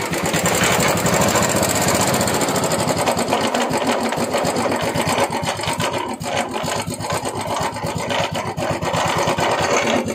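Royal Enfield Bullet single-cylinder engine running with a fast, even clatter, a noise that the mechanic places inside the clutch housing and links to a starter (self) fault.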